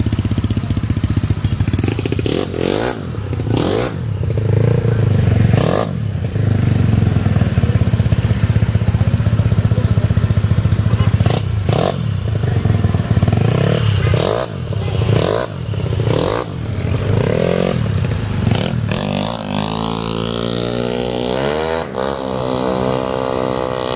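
Single-cylinder four-stroke engine of a Yamaha Mio scooter, built out to 160 cc for drag racing, running and being revved in short throttle blips again and again. It settles into a steadier running note for the last few seconds.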